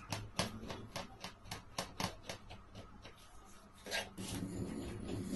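Knife blade scraping and chopping a dried firecracker powder mixture on a plastic cutting board to grind it: a quick run of short scrapes, about three or four a second, thinning out, with a sharper one about four seconds in. After that comes a steadier, lower rubbing noise.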